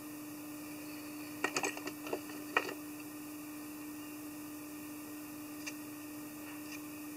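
A few small, sharp clicks and taps from fly-tying tools and materials being handled at the vise, bunched together between about a second and a half and two and a half seconds in, with one faint click later. A steady low hum runs underneath.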